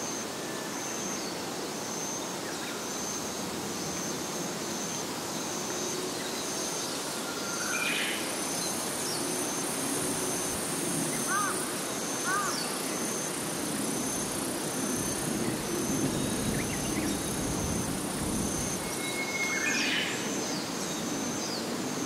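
Early-evening forest-pond ambience. Insects keep up a steady high pulsing call, about two pulses a second, and a higher insect buzz joins about a third of the way in and stops a few seconds before the end. Birds give a few short chirps near the middle, and a low distant rumble swells through the second half.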